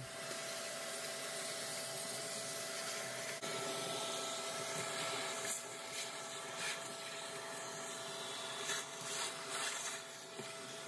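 Vacuum cleaner running steadily with a whine, its crevice nozzle sucking dirt and debris off a wooden floor. A second, higher tone joins about three and a half seconds in. Short scrapes and rattles come as bits of debris are pulled in.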